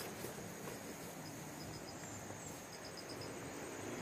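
Insects chirping: a steady high thin buzz with short pulsed chirps in small groups of four or five, repeating every second or so. A brief click at the very start.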